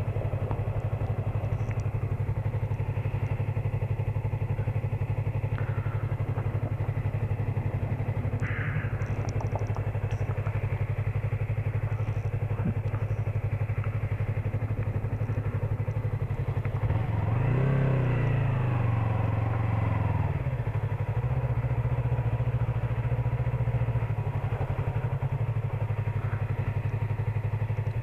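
Yamaha MT-03 motorcycle engine running steadily at low riding speed. For a few seconds past the middle the engine speed rises and falls, then it settles back to its steady note.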